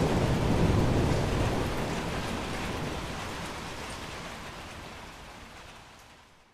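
Steady rain falling, with the low rumble of thunder dying away in the first second or two. The whole storm then gradually fades out.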